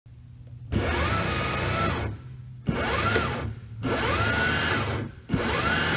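Electric drive motor of a modified Crazy Cart run up in four short throttle bursts, each a whine that rises in pitch as the motor spins up and then holds, over a broad noisy hiss; the last burst begins near the end.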